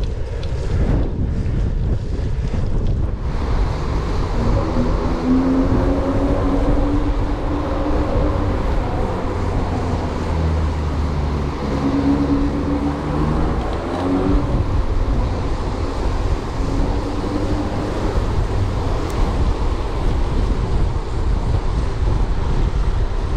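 Strong wind buffeting an action-camera microphone on a moving bicycle, a steady low rumble and rush.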